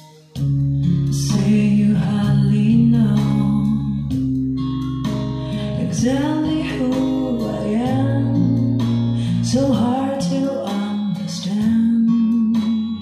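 A recorded song with guitar and a singing voice, played through a Sansui AU-666 amplifier and loudspeakers. It starts abruptly about half a second in.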